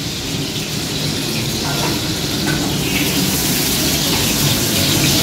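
Pointed gourds (potol) frying in oil in a wok on a gas stove, sizzling as a spatula stirs them. The sizzle grows brighter about three seconds in, over a steady low hum.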